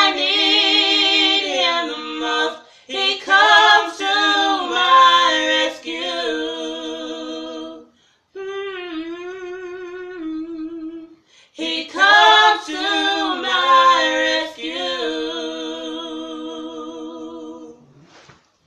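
Solo voice singing unaccompanied in long, wordless phrases with heavy vibrato, in four phrases broken by brief pauses, the last one trailing off near the end.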